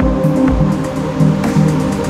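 Background music: sustained held chords over low, recurring bass notes.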